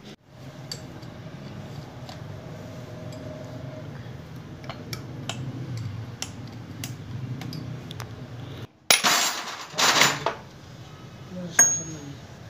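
Metal clinks and knocks as a cast-iron tractor PTO housing and its loose parts and spanners are handled on a concrete floor, over a steady low hum. About nine seconds in come two loud, harsh bursts of noise, then a sharp metallic hit.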